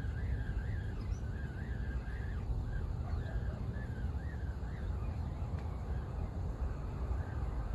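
Wind rumbling on the microphone, with a faint wavering whine that rises and falls about three times a second.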